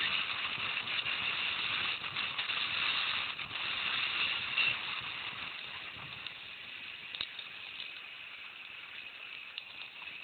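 Mountain bike rolling down a gravel road: tyres crunching on loose gravel with small clicks and rattles, growing quieter about halfway through as the bike slows.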